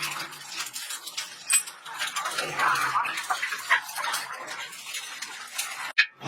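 Irregular light metal clinks and knocks from sheet-metal work on water heater parts, over a background of workshop noise.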